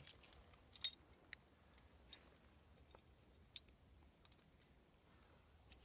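A few faint, sharp metallic clicks of carabiners and climbing gear being handled at a chain anchor, against near silence.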